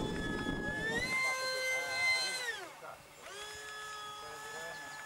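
High whine of a Multiplex Twister radio-controlled model jet in flight. The whine climbs in pitch about a second in, falls away sharply about two and a half seconds in, then steadies again.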